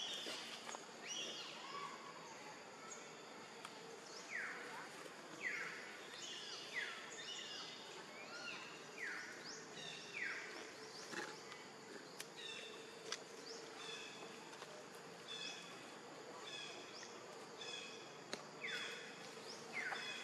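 Forest ambience of wild animal calls: a run of short calls that fall steeply in pitch, about one a second, then repeated short chirps, over a faint steady drone.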